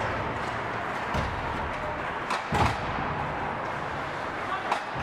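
Indoor ice rink during hockey practice: a steady hiss from the rink hall with a few sharp knocks of sticks and pucks, the loudest a pair of thuds about halfway through.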